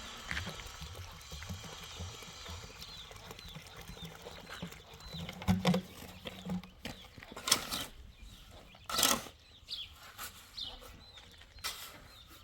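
A few separate rough scraping strokes, like a blade or stone worked against wood, spaced a second or more apart, with faint short chirps in the background.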